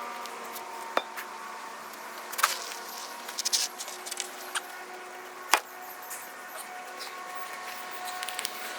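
Scattered metal clinks and knocks, the sharpest about a second in and again around two and a half and five and a half seconds in, over a steady machine hum.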